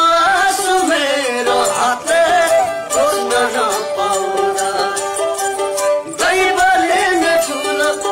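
A Nepali folk song: a singing voice with instrumental accompaniment.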